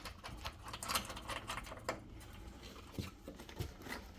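Irregular small clicks and rattles of a metal water-heater earthquake strap and its bracket being handled as the slack is pulled out by hand, with a few sharper clicks.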